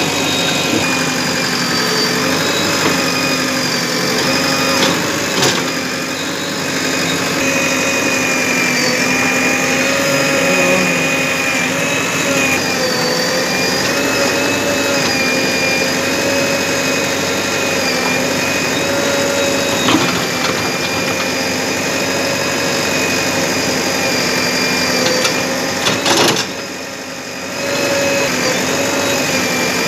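JCB 3DX backhoe loader's diesel engine running steadily under digging load, with a steady whine that wavers slightly as the backhoe arm works the soil. A few short knocks come through, and the sound drops briefly near the end.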